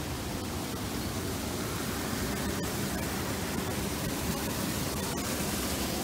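Steady rushing noise with no pitch or rhythm, even from low to high.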